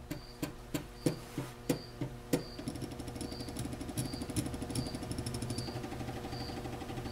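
Small stepper motors of salvaged floppy and CD-ROM drive sleds driving the axes of a homemade CNC machine. They first step in separate clicks about three a second, then from about two and a half seconds in run as a fast, continuous buzz of steps.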